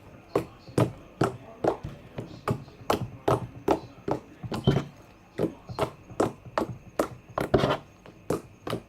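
Thick glue-and-borax slime being squeezed and worked by hand, making sharp clicking pops about two to three times a second.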